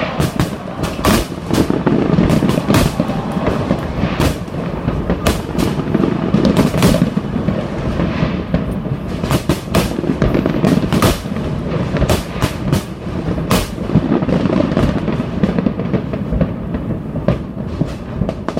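Large fireworks display: dense, rapid bangs and crackles over a continuous rumble of explosions.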